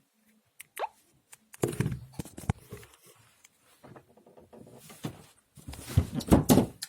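A ringtone playing through the small speaker of a BQ 2431 push-button mobile phone: a sound-effect tone of scattered clicks and short rising blips, with two louder noisy bursts, about a second and a half in and again near the end, the second the loudest.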